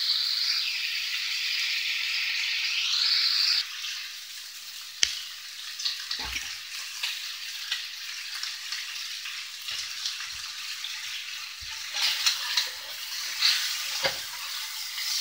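Pork chunks frying with a steady hiss in a cast iron skillet, louder for the first few seconds. There is a sharp click about five seconds in, and near the end a spatula knocks and scrapes in the pan as the pieces are turned.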